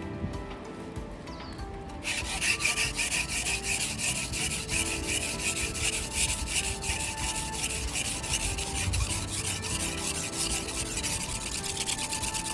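Steel blade of a GLOBAL Santoku knife being stroked back and forth on a whetstone: a rapid, continuous scraping rasp of repeated strokes that starts about two seconds in.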